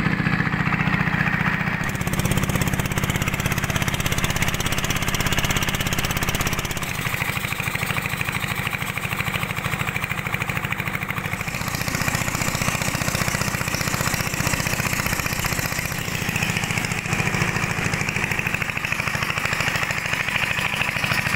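Small boat's engine running steadily while under way.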